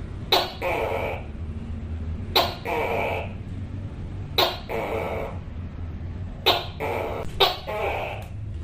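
Tokay gecko calling its loud two-part "to-kay" call over and over, about once every two seconds, each call a sharp first syllable followed by a longer drawn-out second one.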